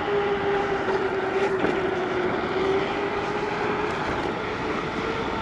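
Gotrax GX1 dual-motor electric scooter riding at speed: a steady whine from its electric motors over a continuous rush of wind and tyre noise.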